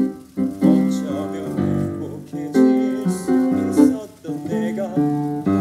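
A male voice singing a slow, sad musical-theatre ballad with vibrato on the long held notes, over instrumental accompaniment, with brief breaths between phrases.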